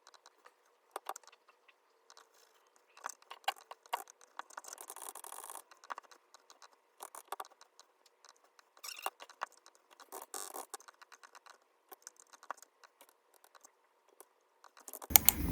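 Scattered light clicks, taps and scrapes of small objects being handled, with a short rustle about five seconds in. A louder, fuller noise starts right at the end.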